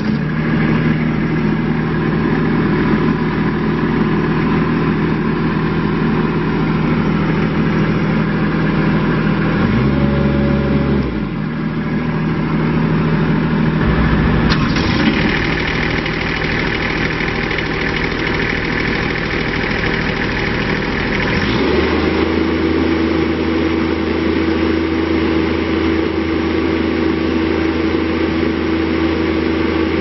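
Diesel engine of a Toro Dingo TX525 compact walk-behind crawler starting up and running. Its note changes several times: a brief dip and recovery about ten seconds in, a brighter, fuller sound from about fifteen seconds in, and a new steady pitch from about twenty-two seconds in.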